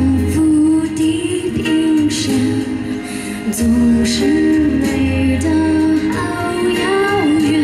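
A woman singing a Mandarin pop ballad live into a handheld microphone over backing music with a steady beat.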